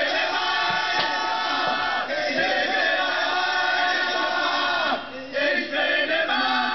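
Several male voices singing together in a rough, chant-like punk chorus, breaking off briefly about five seconds in before carrying on.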